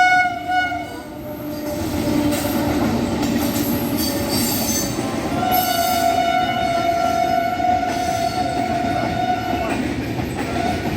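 WAP-7 electric locomotive's horn sounding: one blast ends about a second in, and a second long blast runs from about halfway until shortly before the end. Underneath is the steady rumble and clatter of the express train's wheels on the rails, with high screeching from the wheels a few seconds in.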